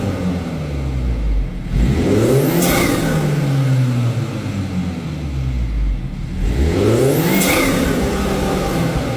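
BMW F32 4 Series' B48 turbocharged four-cylinder engine with an open cone induction kit, blipped twice from idle: the revs climb quickly and fall slowly back to idle each time. A high hiss rises and falls at the top of each rev.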